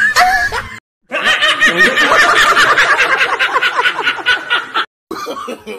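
Laughter in quick pulsing bursts, broken by abrupt cuts to silence about a second in and again near the end.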